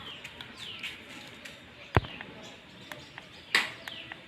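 The power button of a 3-in-1 bicycle light, horn and speedometer unit is pressed to switch it on: one sharp click about two seconds in, then a short scuff of handling near the end. Small birds chirp faintly in the background throughout.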